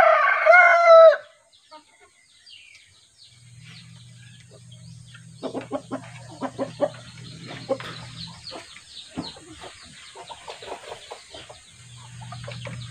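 A rooster crowing once, loudest in the first second, followed by quieter short clucks from chickens over a low steady hum.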